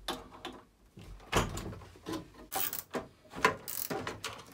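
Irregular clicks and metal knocks from a hand tool undoing the fixings on a Baxi Neta Tec combi boiler's burner. The sharpest knocks come about a second and a half in and again near three and a half seconds.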